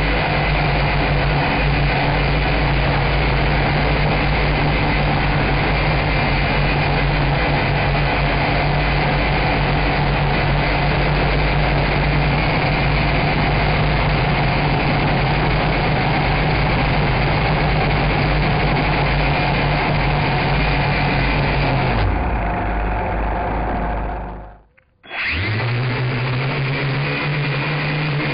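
Nine Eagles Mola M24 quadcopter's motors and propellers whining steadily, heard close through its onboard camera. Near the end the motors wind down to a moment of silence, then spin up again.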